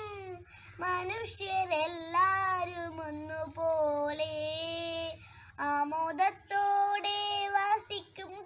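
A young girl singing solo, holding long notes that slide up and down, with a short breath between phrases about five seconds in and again near the end.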